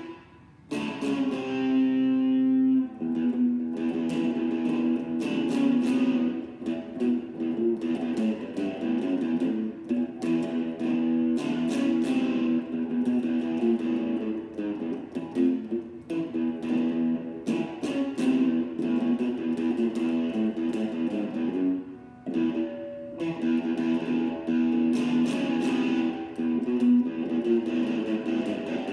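Solo electric guitar playing: a chord rung out and held for a couple of seconds near the start, then fast picked notes and riffs with brief pauses.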